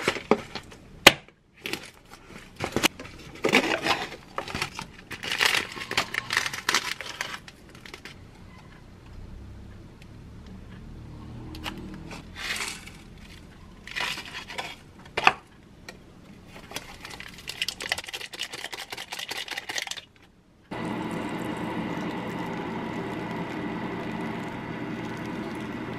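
Paper cup-noodle packaging being handled: the lid peeled back and seasoning sachets torn open, with irregular crinkling, tearing and small clicks. About 21 s in, a hot-water dispenser starts pouring a steady stream into the paper cup.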